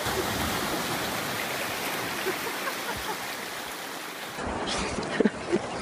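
Sea water splashing and small waves breaking in shallow surf around a swimmer, a steady rushing hiss that cuts off abruptly about four seconds in.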